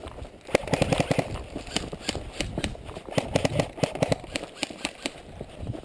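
Quick footsteps of a person moving fast over rough ground, with sharp irregular clicks and rattles of carried gear.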